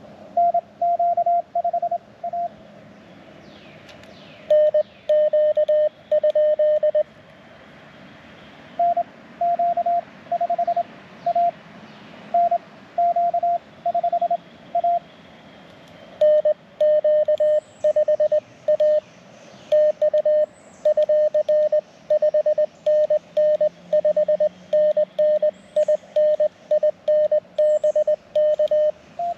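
Morse code (CW) on an amateur radio transceiver: a single steady tone keyed on and off in dots and dashes, in runs separated by short pauses. The tone sits at two slightly different pitches in turn, the higher one near the start and again at the very end.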